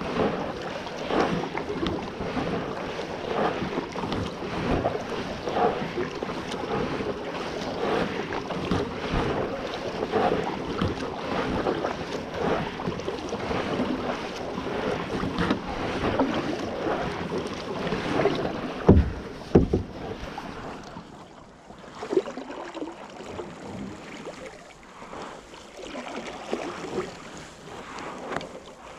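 Double-bladed paddle strokes dipping and splashing in calm water beside a plastic sit-in kayak, about one stroke a second, with some wind on the microphone. About two-thirds of the way in come two sharp knocks, after which the strokes stop and only gentle water sounds remain as the kayak glides.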